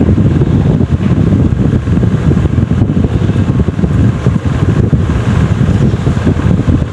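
Wind buffeting the phone's microphone: a loud, steady low rumble that flutters rapidly.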